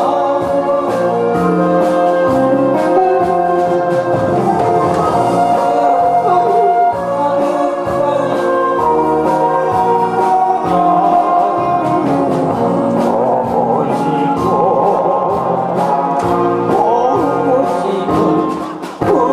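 A man singing into a handheld microphone over instrumental accompaniment, holding long notes.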